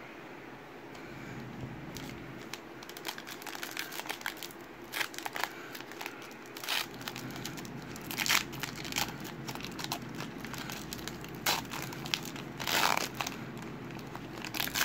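Foil wrapper of a football trading-card pack being torn open and peeled back by hand, crinkling and crackling in irregular bursts that grow louder after the middle.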